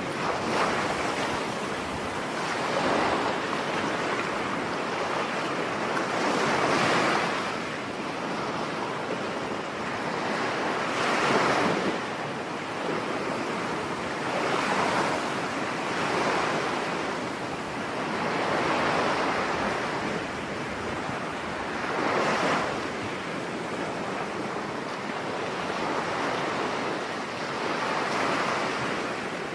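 Sea waves washing in, a constant hiss of surf that swells every three to four seconds as each wave comes through.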